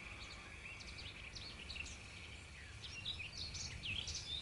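Faint birds chirping and twittering in many short calls, growing busier toward the end.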